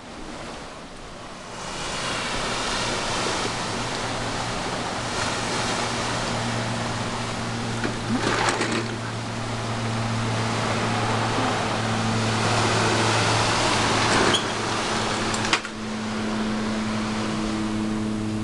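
Seaside ambience: a steady wash of ocean surf from the shore below, growing louder about a second in, over a steady low mechanical hum. A few short knocks and rattles come near the middle and near the end.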